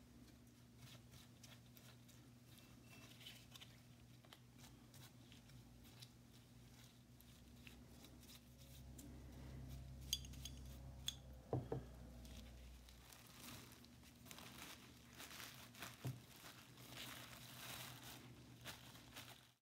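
Faint dabbing and scraping of a paint brush working stripper gel over hand plane parts, with a few sharp clicks about halfway through as a part is handled. Plastic crinkles near the end. A low steady hum underlies it all.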